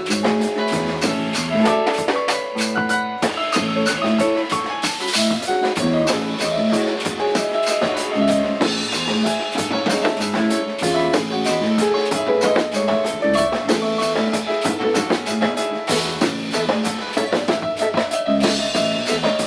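Instrumental band music: a busy drum kit with snare and bass drum under electric bass, keyboard and guitar playing a melodic line.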